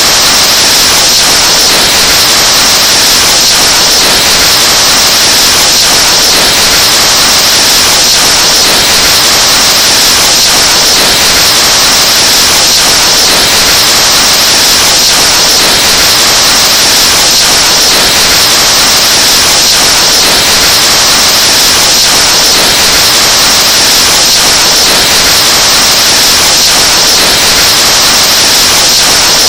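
Breath blown into a microphone, overdriven into a very loud, harsh distorted hiss that runs steady without a break.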